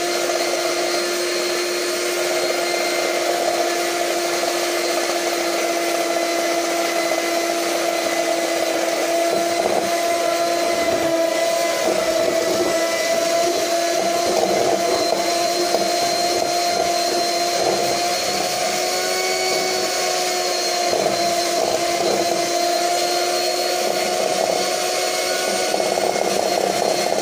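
Electric hand mixer running steadily, its beaters whipping cold heavy cream in a stainless steel bowl toward stiff peaks, with an even motor hum.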